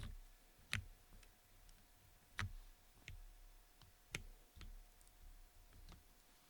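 Custom mechanical keyboard (Geonworks Frog with lubed Cherry MX Black linear switches on an FR4 half plate) struck in slow, scattered single keystrokes. There are about seven short clacks a half-second to a second and a half apart, some louder than others.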